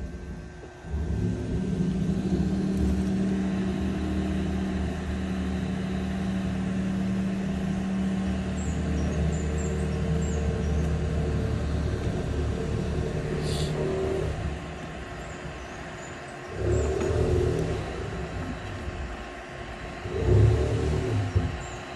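Heat gun running, its fan motor giving a steady hum, switched on about a second in, blowing hot air onto a remote control's circuit board to melt the solder under a small chip. The hum drops about two-thirds of the way through, with two short louder surges near the end.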